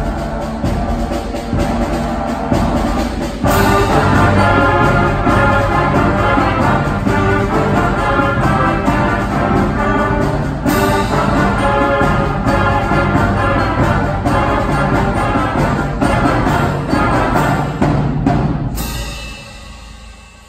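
Youth concert band playing: clarinets, brass and percussion together. It swells louder about three and a half seconds in, with strong accents there and again about eleven and nineteen seconds in, then dies away near the end.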